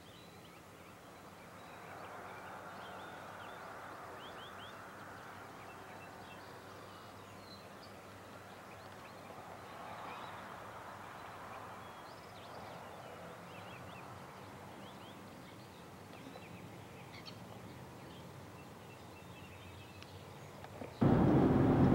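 Faint rural outdoor ambience with small birds chirping here and there over a soft steady background hiss. About a second before the end it cuts suddenly to a much louder steady vehicle noise.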